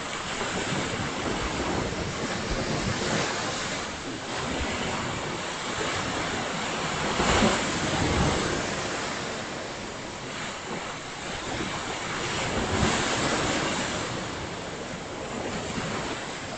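Ocean surf: waves breaking and washing up the beach, swelling and easing, the loudest about halfway through. Wind on the microphone.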